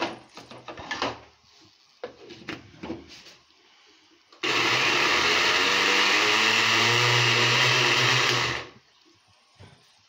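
Countertop blender motor running for about four seconds with a steady whir, then switched off. Before it starts there is a clatter of the plastic jar being set on the base and the lid fitted.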